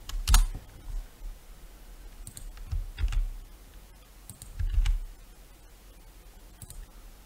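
Scattered clicks of a computer keyboard and mouse: a handful of single keystrokes and button presses with pauses between, some with a dull thud on the desk.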